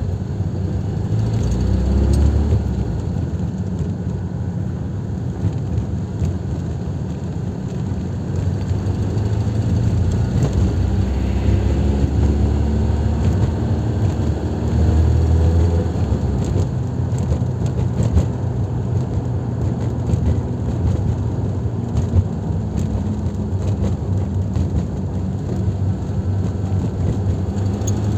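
Porsche 924 2.0's four-cylinder engine and running gear under way while the car gathers speed, with a knock that comes in on acceleration. Short, sharp knocks stand out here and there over the steady running, the clearest about twenty-two seconds in.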